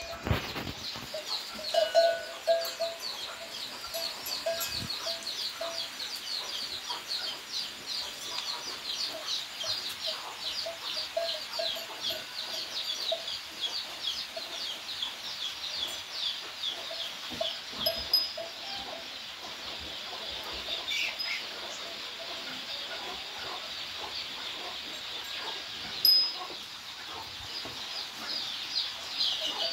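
Chicks cheeping in a rapid, continuous stream of short, high, falling peeps, with lower clucking repeating beneath them. The cheeping thins out about two-thirds of the way through. A single sharper, louder sound comes near the end.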